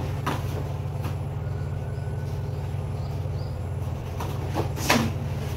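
A steady low engine-like hum throughout, with a few sharp thuds and slaps from two martial artists grappling on foam mats. The loudest comes near the end as one is taken down.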